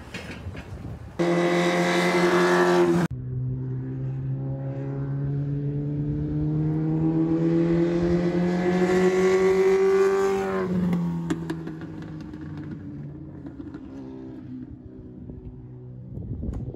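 Legends race car's Yamaha motorcycle engine. It is revving loudly close by for a couple of seconds, then cuts off. Then it accelerates on track, its pitch rising steadily for several seconds before dropping away about ten seconds in, leaving a lower, steadier engine note.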